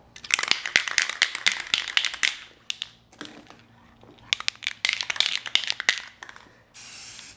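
Aerosol spray paint can being shaken, its mixing ball rattling rapidly in two bouts of about two seconds each. Near the end a short steady hiss begins as the paint starts to spray.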